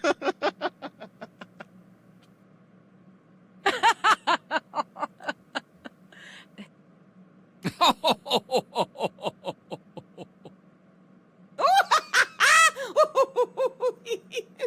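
Plotagon animation app character laughs: four separate canned laughs a few seconds apart, each a quick string of 'ha-ha' pulses. The last laugh starts high and falls in pitch.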